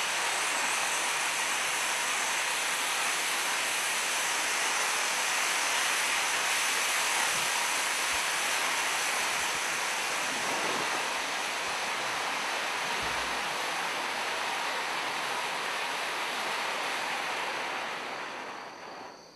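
A 4-inch gold volcano fountain firework burning: a steady rushing hiss of spraying sparks that fades and dies away near the end.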